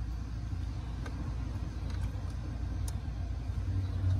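Steady low hum that grows stronger near the end, with a few faint light clicks.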